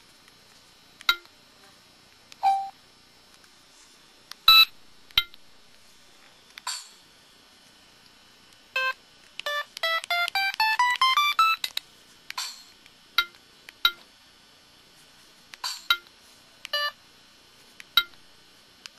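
Samsung SCH-X750 mobile phone playing its key tones and effect sounds: short electronic beeps a second or so apart, and near the middle a quick run of notes climbing in pitch for about two seconds.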